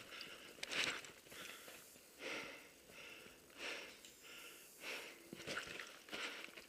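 A paintball player breathing hard close to the microphone, about one breath every second and a half.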